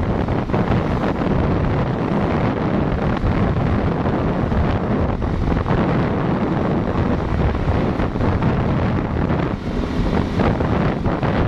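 Loud, steady wind buffeting on the microphone of a phone carried on a moving vehicle, with rumbling road and vehicle noise underneath.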